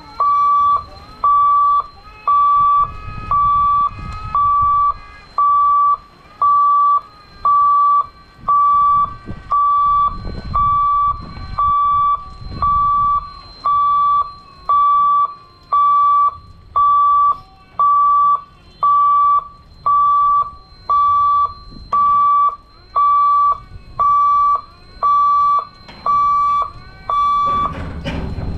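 Level crossing gate warning hooter sounding a loud, steady high beep about once a second, each beep about half a second long, warning that the gate is closing for a train. The beeping stops shortly before the end.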